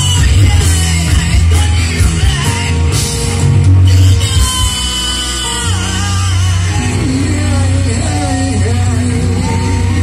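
Live rock band playing loudly: electric guitar and a heavy low bass under a singer's voice.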